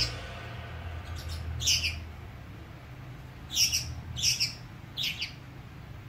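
A young pet parrot chirping: four short, high chirps spaced about a second apart, over a faint low hum.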